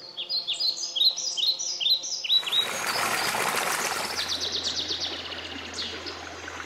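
Songbirds calling: a rapid series of short, descending chirps, interrupted about two seconds in by a burst of rushing noise, followed by a quick trill and more scattered chirps.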